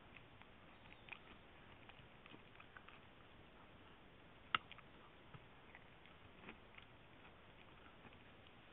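Dachshund chewing on a chew: faint, scattered clicks of teeth and mouth on the chew, with one sharper click about four and a half seconds in.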